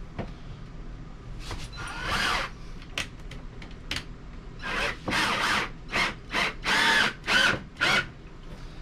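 Power drill driving screws into a wall in short trigger bursts, about ten spurts of motor whine, the longest near the middle, tightening a wall-mount bracket down onto the plywood backer plate behind a thin RV wall panel.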